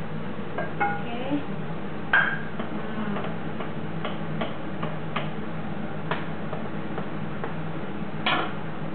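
A spoon clinking and scraping against a pan and a plate as food is served. The light clinks come every second or so, some with a short ring, the loudest about two seconds in and another near the end. A steady low hum runs underneath.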